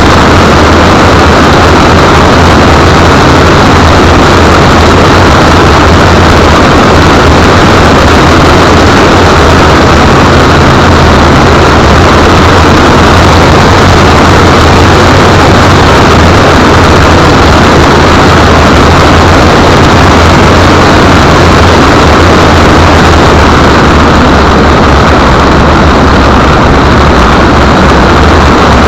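Car engine with road and wind noise picked up by a tiny camera mounted under the car: a loud, steady low drone with rushing noise over it, unchanging throughout.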